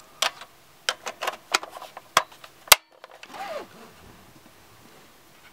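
Hard plastic blaster and stock parts clicking and knocking as they are handled and fitted together: a run of light clicks, one sharp snap near the middle, then a brief sliding scrape.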